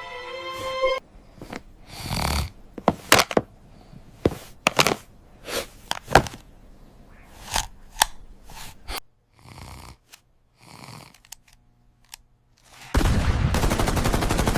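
A string of sharp clicks and knocks, with a few soft snore-like breaths between them. About thirteen seconds in, a sudden loud, continuous din of gunfire-like noise starts: the TV blasting at full volume.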